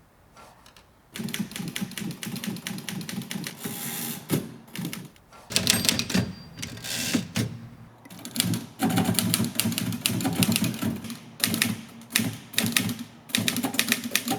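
Typewriter keys struck in fast runs of clicks, several bursts of typing separated by short pauses, starting about a second in.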